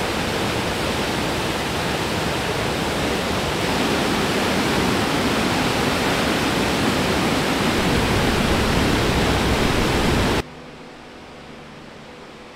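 Chaica River waterfall pouring over rocks into a pool: a loud, steady rush of falling water. It cuts off suddenly about ten seconds in, leaving a faint steady hiss.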